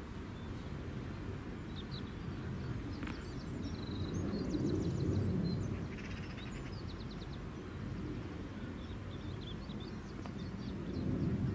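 Small birds chirping, with several quick high trills, over a steady low rumble that swells briefly about halfway through.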